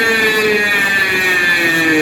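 Large DJ sound system playing a loud, buzzy synth tone that slowly slides down in pitch during a sound check.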